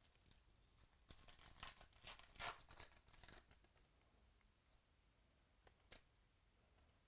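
A 2018 Donruss baseball card pack's foil wrapper being torn open and crinkled: a burst of ripping and crackling about a second in that dies away by about three and a half seconds.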